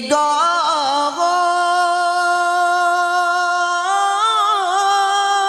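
A man singing a naat without accompaniment, drawing out one long melismatic note. The pitch steps up about a second in and breaks into wavering turns near the end.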